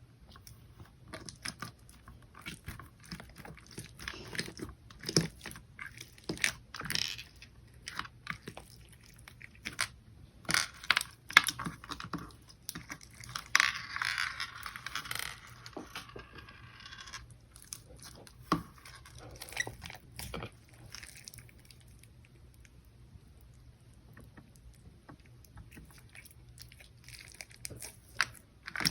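Bead-filled slime being squeezed and stretched by hand, giving many sharp crunching clicks and crackles. There is a dense run of crackling about halfway through, and the clicks thin out and grow quieter near the end.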